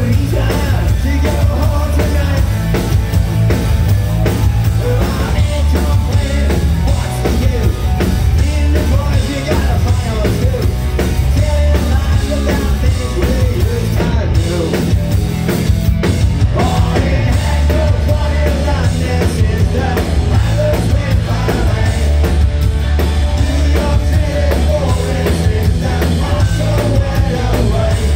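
Punk rock band playing live and loud: electric guitars, bass and drum kit driving on, with the lead singer singing over them.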